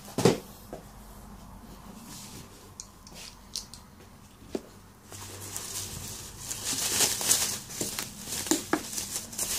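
Plastic bubble wrap crinkling and rustling as a boxed phone is pulled out of its bubble-wrap bag, loudest from about five seconds in. Near the start there is a single sharp knock, followed by a few light taps.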